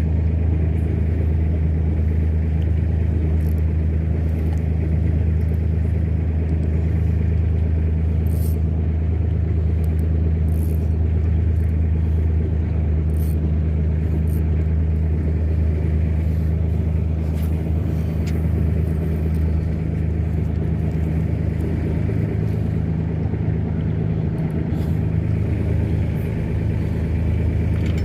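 An engine running steadily at a constant speed, a low even drone with a hiss of wind and water noise over it and a few faint clicks.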